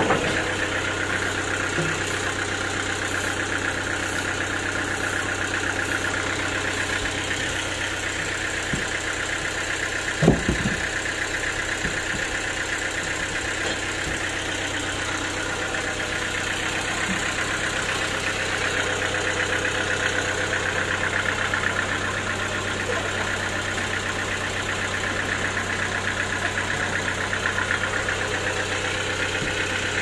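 Band sawmill running steadily with no log in the cut, a continuous machine hum. A single short thump about ten seconds in.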